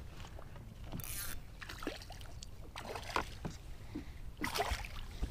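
Handling noise on a fishing boat's carpeted deck: scattered light knocks and clicks, with two brief rustles about a second in and near the end, over a low steady rumble.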